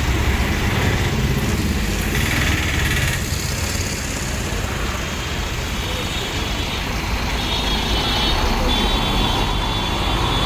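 Large diesel bus engines running close by, a steady low rumble. In the second half, a high-pitched beeping tone sounds in three spells.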